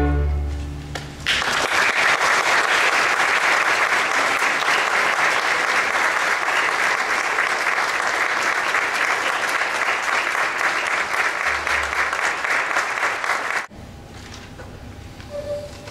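A string orchestra's final chord dies away, then an audience applauds steadily for about twelve seconds before the sound cuts off abruptly.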